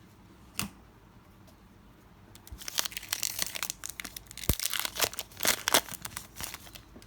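A foil Pokémon booster pack wrapper crinkling and tearing as it is opened: a busy run of sharp crackles that starts a couple of seconds in and stops shortly before the end, after a single click about half a second in.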